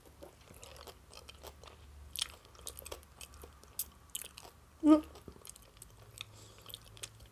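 Close-miked chewing of a mouthful of salad, mouth closed, with soft wet smacks and small clicks. About five seconds in there is a short hummed "mm".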